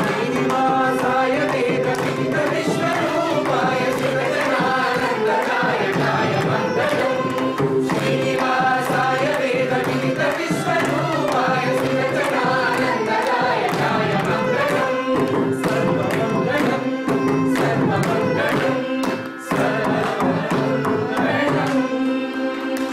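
A group of voices sing a Carnatic Mangalam, the closing devotional song, together over a steady drone note, with mridangam drum strokes throughout.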